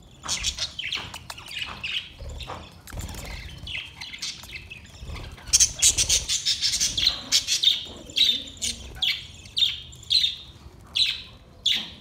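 A flock of budgerigars chirping and chattering, many short high calls overlapping. The calls get busier and louder about halfway through.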